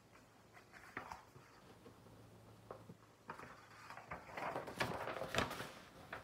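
Paper pages of a picture book being handled and turned: a few faint taps, then from about halfway a flurry of page rustling.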